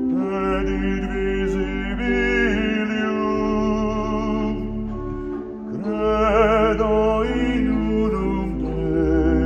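Solo male voice singing with vibrato over sustained pipe organ chords, with a deep pedal bass note that drops out around the middle and comes back.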